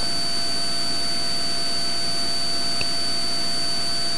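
Steady in-flight cabin drone of a Cessna T182T Skylane's turbocharged 540-cubic-inch Lycoming engine and propeller at cruise power, with a thin, steady high whine over it.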